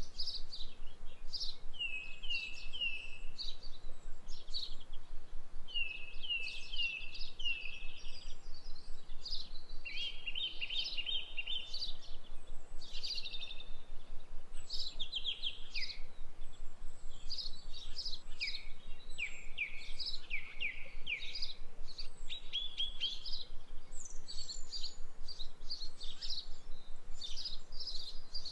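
Birds chirping and singing: quick series of short, falling chirps and trills, overlapping and repeating, over a steady faint hiss.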